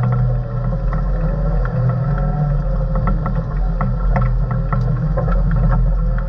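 Diesel engine of a motor grader running steadily under load as it pushes sand into a windrow, a constant low drone. Frequent small clicks and rattles run through it.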